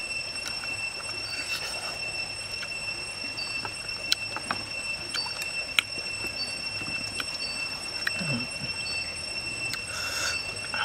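Steady high-pitched insect drone, with a short chirp repeating about every second and a half. A few sharp clicks stand out, the loudest about four and six seconds in, and a brief low hum comes about eight seconds in.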